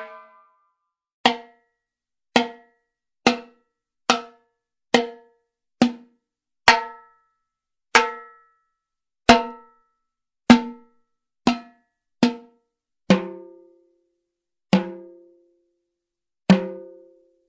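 A series of about fifteen single drum hits, roughly one a second, each a sharp strike that rings briefly and dies away; the last few are deeper and ring longer.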